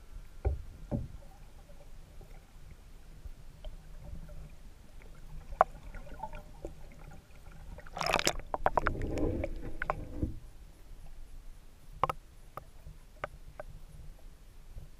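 Muffled underwater sound of a camera just below a small paddled boat's hull: a steady low rumble of moving water with scattered sharp knocks, and a loud burst of churning, bubbling water about 8 seconds in that lasts about two seconds.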